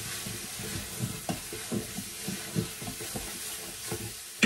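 Chopped garlic sizzling in a hot Instant Pot as it is stirred, the utensil's strokes coming about twice a second. One sharp knock near the end.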